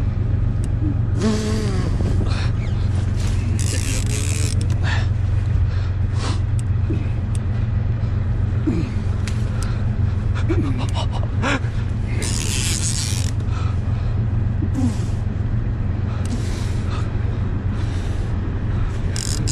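Steady low drone of the boat's motor running, under repeated short rustles and scattered creaks and clicks as rain gear and the bent fishing rod are handled while a heavy sturgeon is played.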